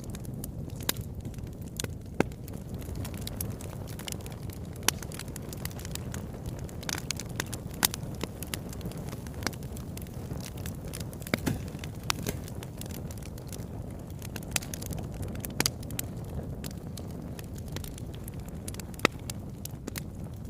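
Wood fire burning in a fireplace, with a steady low rush of flames and irregular sharp crackles and pops from the burning logs.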